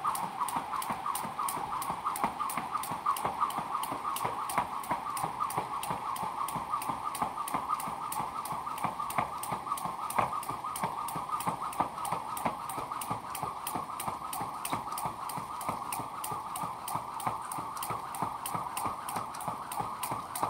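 Jump rope slapping the ground at a steady skipping rhythm, about two to three slaps a second, over a steady droning tone in the background.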